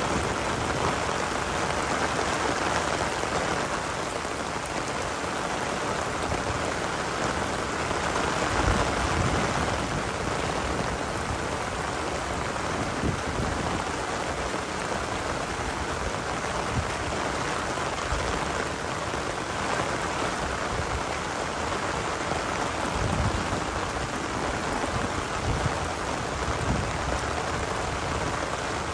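Steady rain falling on the ground and surrounding surfaces, a dense even hiss, with a few brief low thumps.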